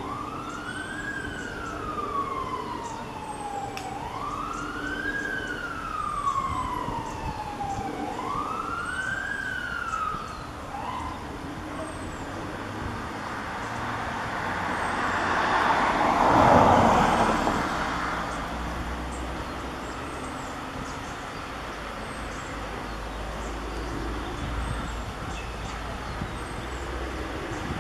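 Emergency vehicle siren wailing, its pitch sweeping up quickly and falling slowly about once every four seconds, three times before it stops about ten seconds in. Then a vehicle passes close by, swelling and fading, loudest a little after halfway.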